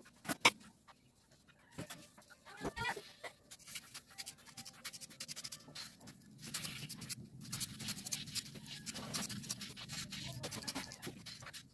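Starter motor brush holder parts being handled and pried apart by hand on a workbench: sharp small clicks and rattles of metal and plastic, loudest under half a second in, with a dense run of small clicks and rustling over the second half. A short pitched sound comes about two and a half seconds in.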